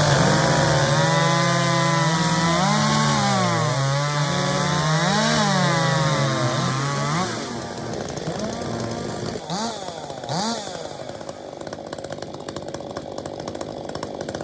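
Two-stroke racing chainsaw of the 81 cc class running at full throttle through a cut, its pitch dipping and recovering under load, then stopping about seven seconds in. After that the sound is quieter, with a few short revs of a saw.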